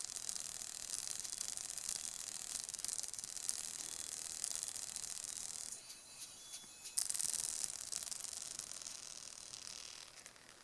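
Plantronics BackBeat Fit earbud speaker being blown: it gives a steady high hiss with fine crackling as its overdriven voice coil burns and smokes. The sound cuts out for about a second midway, comes back, then fades near the end.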